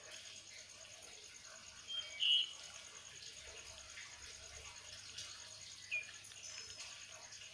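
Faint steady background hiss with two short high-pitched chirps, the louder one about two seconds in and a smaller falling one near six seconds.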